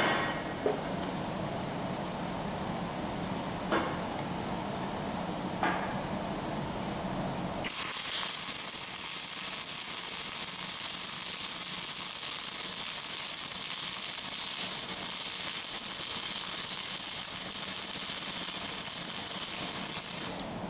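Wire-feed (MIG) welding arc on steel angle bar: it strikes suddenly about a third of the way in and runs with a steady crackling hiss for about thirteen seconds, then stops just before the end. This is a weld being laid into a ground-out butt joint to get full penetration. Before the arc there is a low steady hum with a few light clicks.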